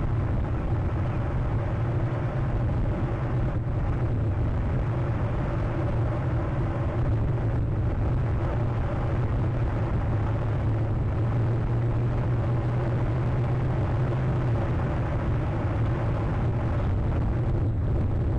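Steady low rumbling outdoor background noise, even in level, with no distinct calls or impacts.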